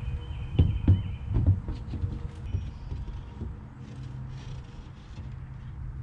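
Dull knocks and thumps, about four in the first three seconds, as a soffit panel is pushed up into place, over a steady low rumble.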